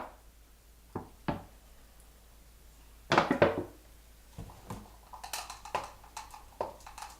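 Kitchen utensils being handled on a counter: a few separate knocks, a louder cluster of clatter about three seconds in, then a run of light clicks and rustles.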